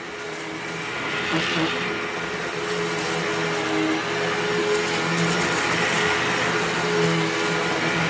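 Hoover WindTunnel Mach 2.1 upright vacuum cleaner running as it is pushed back and forth over a rug, sucking up leftover cat litter and dry cat food. It is a steady motor hum and rush of air that rises and falls a little with each stroke.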